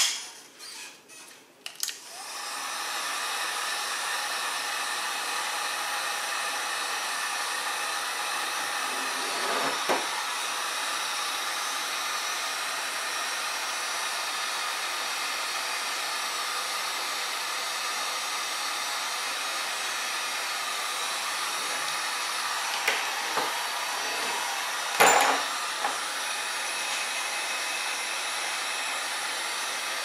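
Electric heat gun switched on about two seconds in, then blowing steadily. A few short knocks from handling come over it, the loudest about 25 seconds in.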